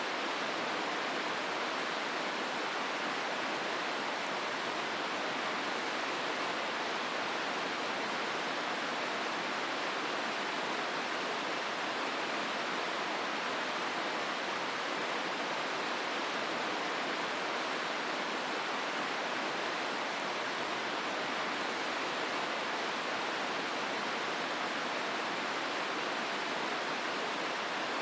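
The Hozu River running through its gorge: a steady, even rush of flowing water with no single event standing out.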